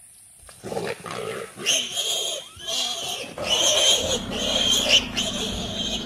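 An animal struggle in the bush: a leopard attacking its prey, with loud, repeated cries and growls that break out suddenly about half a second in and come again roughly once a second.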